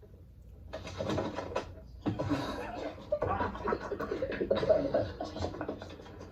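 Several people laughing and chuckling, broken and irregular, mixed with indistinct voices.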